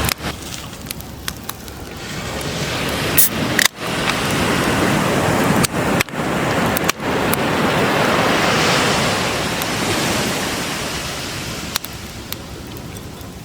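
Bacon and eggs frying in a pan over a campfire: a steady sizzling hiss, broken by sharp pops and crackles, that swells a little past the middle and then eases off.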